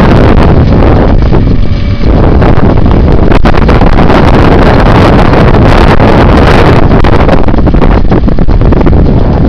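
Strong wind buffeting the microphone, loud and nearly constant, with a tractor engine running underneath it; the engine's steady tone shows through briefly in a lull a second or two in.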